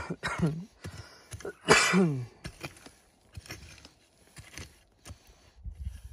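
Small hand pick striking dry, stony soil in repeated knocks. Two short cries that fall in pitch, one at the start and one about two seconds in, are louder than the digging.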